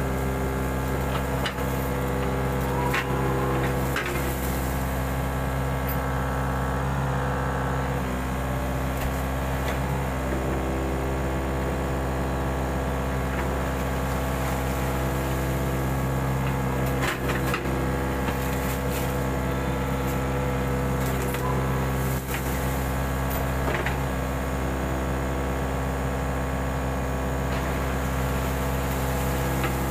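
Mini excavator's diesel engine running steadily under work, with scattered knocks and clanks.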